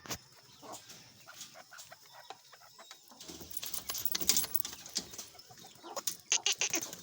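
Chukar partridge giving short clucking calls, with a busier run of notes about four seconds in and again near the end.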